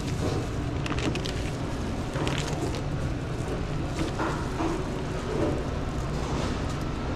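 Steady low rumble of sandwich-shop background noise, with scattered brief rustles and light clicks from handling behind the counter.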